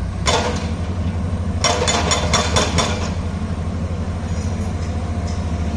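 Excavator's diesel engine running steadily with an even low pulse. A sharp knock comes about a quarter second in, then a quick run of about six knocks around two seconds in.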